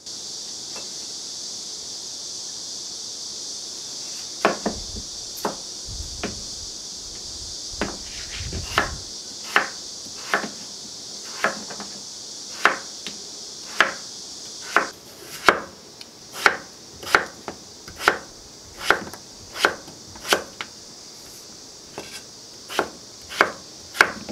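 Chef's knife slicing peeled potatoes on a wooden cutting board, each cut ending in a sharp knock of the blade on the board. The cuts come irregularly at first, then settle into a steady pace of roughly one a second, over a steady high hiss.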